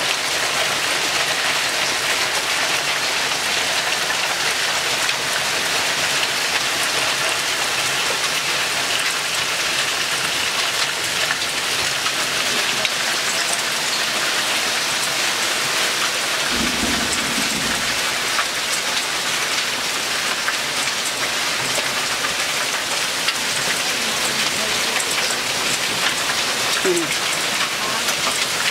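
Hail and rain pelting down in a steady hiss, with scattered sharp ticks of stones striking. A brief low rumble of thunder comes a little past the middle.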